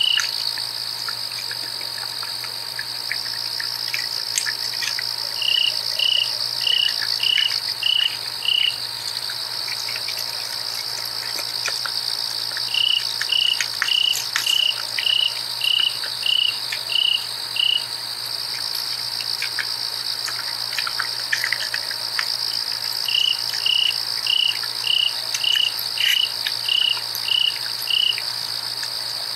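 Night insect chorus of crickets: a steady high trill throughout, with three bouts of a louder call made of evenly spaced chirps, a little under two a second, each run lasting several seconds.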